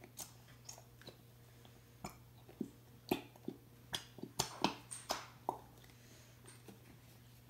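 A plastic Elmer's School Glue bottle squeezed by hand as glue is pushed out: a scatter of faint short clicks and squelches, bunched together in the middle few seconds.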